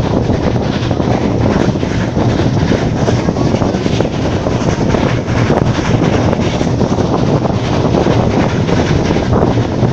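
Vintage passenger train running at speed, heard from an open carriage window: a steady rush of wind over the microphone mixed with the rolling noise of the wheels on the track.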